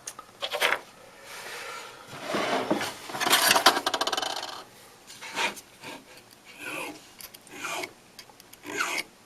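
Jeweller's file rasping over a ring's prongs in short, uneven strokes, smoothing them after the stone is set. The longest and loudest stroke comes about three seconds in.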